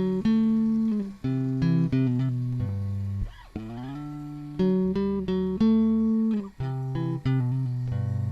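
Music played on a plucked guitar in a low register: a run of sustained notes with a few sliding rises in pitch between them.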